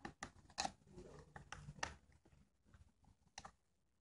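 Faint, irregular clicks and scrapes of a screwdriver turning screws into the plastic housing of a small portable tire-inflator compressor, busier in the first two seconds and sparser after.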